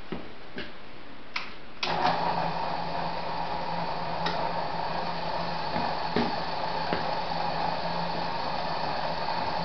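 A few clicks, then about two seconds in an alternator starts up and runs steadily with a hum and a whine, powering an HHO dry-cell electrolysis generator at about 50 amps.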